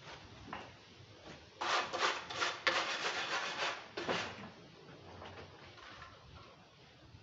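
A mason's hand tool scraping and rubbing on mortar or render in a quick run of rough strokes, from about one and a half seconds in until about four seconds in.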